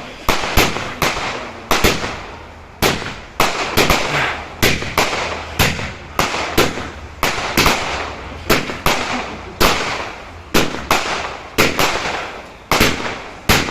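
Fireworks going off in rapid, irregular succession: sharp bangs about one to two a second, each trailing off.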